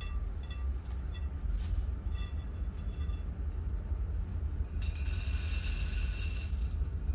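Akadama soil granules poured from a glass jug into a plastic mesh ball, a dry rattling hiss lasting about two seconds, starting about five seconds in. Before it come light clinks of plastic and glass being handled, and a steady low hum runs underneath.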